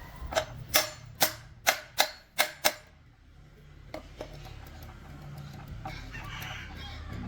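Six quick, sharp metal strikes, about two or three a second, each with a short ring, consistent with hammering on truck gearbox parts. Two lighter knocks follow about a second later.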